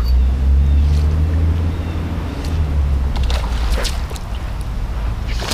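Water sloshing around a canoe hull: a strong low rumble, heaviest in the first couple of seconds, with a few light ticks about three to four seconds in.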